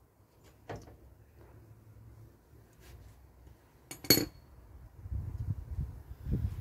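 Small metal parts or a hand tool clinking against the valve gear: a faint tap near the start, then one sharp metallic clink with a brief ring about four seconds in. A low rumble follows.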